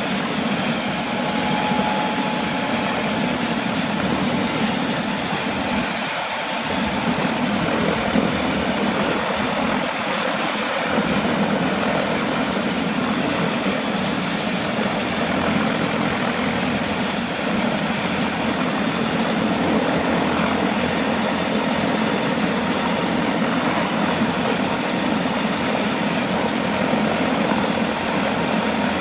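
Airbus AS350B-2 helicopter's single Turbomeca Arriel turbine engine running steadily on the ground.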